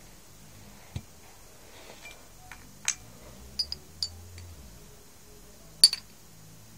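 Metal fork clinking against a cup of water while stirring: a handful of sharp, irregular taps, the loudest near the end.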